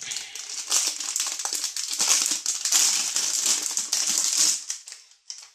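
Clear plastic packaging crinkling and rustling in the hands as an 80 mm fan filter is taken out of it, with many small crackles; it dies away near the end.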